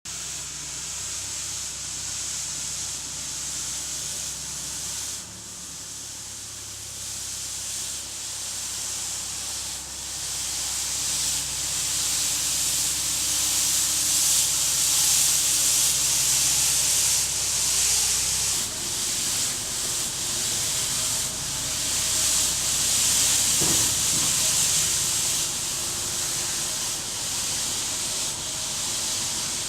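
Rotary sweeper brush scrubbing over a road surface, a steady hiss, with the carrying machine's engine running underneath; the engine note shifts about two-thirds of the way through.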